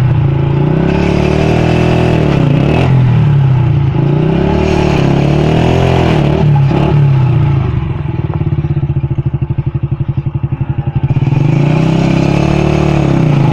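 Small motorcycle engine running a circular saw blade mounted beside its rear wheel, used to cut wood. The engine note sags and recovers twice in the first half, as when the blade is loaded, drops to a slower pulsing run about eight seconds in, then picks up again near the end.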